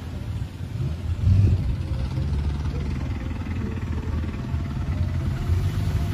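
Low, steady rumble of car engines and road noise from vehicles moving slowly in a caravan, with a brief louder swell about a second in.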